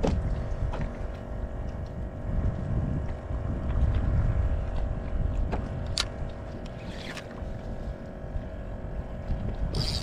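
Wind buffeting the microphone and water sounds around a kayak make a low, uneven rumble over a faint steady hum. A sharp click comes about six seconds in.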